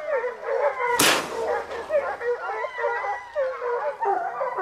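A pack of scent hounds baying and yelping together, many overlapping rising and falling cries: hounds giving tongue on a wild boar they have put up. About a second in, a single sharp bang cuts across the cry.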